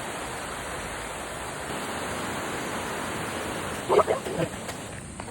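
Waterfall pouring in a steady rush, with a brief cry about four seconds in.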